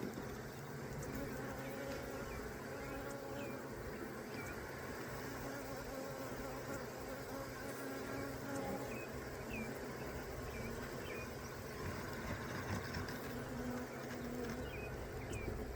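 A swarm of honey bees buzzing in a steady, dense hum, many wingbeats overlapping with slowly wavering pitch.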